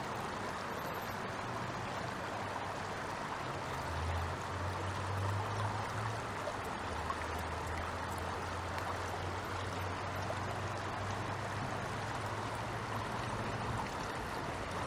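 Shallow stream water running steadily, with a low hum coming in about four seconds in.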